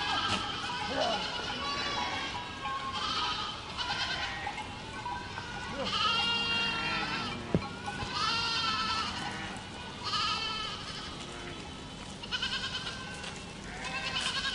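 A herd of goats bleating, with many wavering calls overlapping one after another. A sharp click comes about halfway through.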